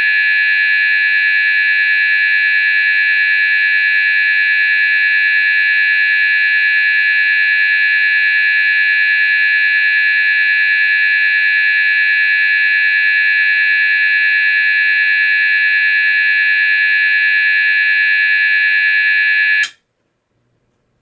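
GE AS363 alarm sounder playing its 800 to 970 Hz sweep at a 100 Hz rate, the British standard low frequency fast sweep, heard as a steady low frequency buzz. It cuts off suddenly near the end.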